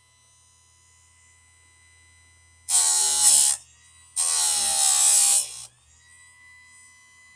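Electric chainsaw chain sharpener: its grinding wheel is brought down onto a chain tooth twice, giving a loud grind of about a second and then one of about a second and a half, over the steady hum of the running motor.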